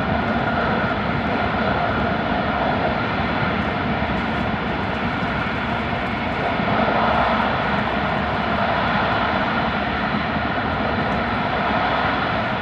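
Steady running noise of an E5 series Shinkansen at speed in the Seikan Tunnel, heard inside the passenger cabin: wheel-on-rail rumble and air roar held close by the tunnel walls.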